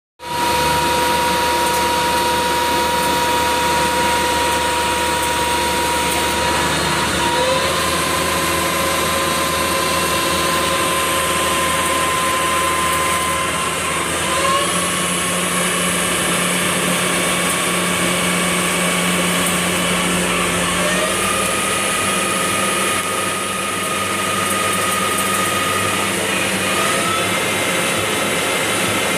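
EZ Path CNC lathe running under constant surface speed while cutting a metal part, its spindle drive whining steadily. The whine shifts pitch in steps several times as the spindle speed changes with the cutting diameter.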